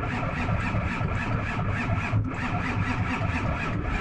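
Starter motor cranking a 1999 Ford F-250's engine in a steady, even rhythm of about five beats a second without it catching. The cranking shows the bypassed clutch pedal switch was the no-crank fault; the failure to fire is put down to a low battery.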